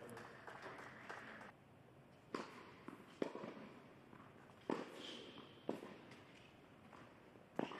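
Tennis rally on an indoor hard court: a series of sharp pops of the ball off the strings and the court, roughly a second or so apart, starting a couple of seconds in.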